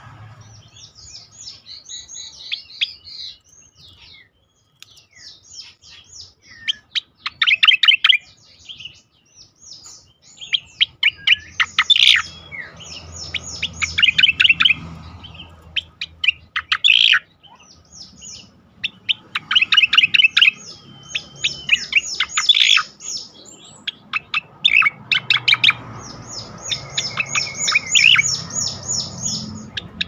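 Striated grassbird (cica koreng) singing: repeated loud phrases of fast clicking notes and high rattling trills, each a few seconds long, with short pauses between them.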